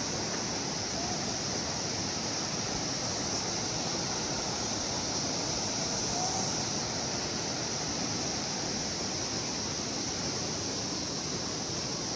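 Fast-flowing river running over rocks: a steady rushing of water.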